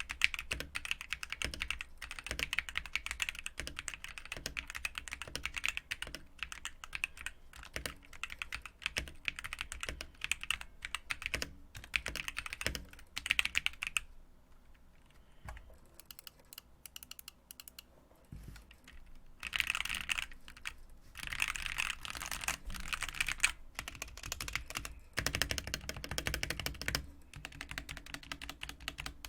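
Typing on a GK61 61-key mechanical keyboard with Gateron Black linear switches: a fast, dense clatter of keystrokes. About halfway through it thins to a few scattered presses for several seconds, then quick bursts of typing resume.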